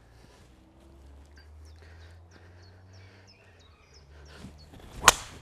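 A driver striking a golf ball off the tee: one sharp, loud crack near the end. Small birds chirp throughout.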